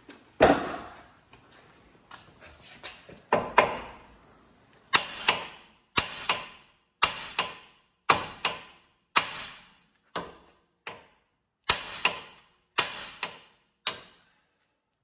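Hammer blows on the steel steering knuckle of a 2006 Ford Explorer, about twenty ringing metal-on-metal strikes, mostly in pairs about a second apart. They are striking the knuckle to shock the tapered tie rod end stud loose.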